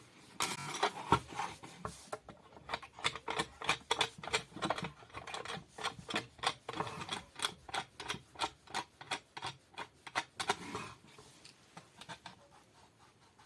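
A rapid, uneven series of sharp light clicks and taps, about three to four a second, which fades out about eleven seconds in.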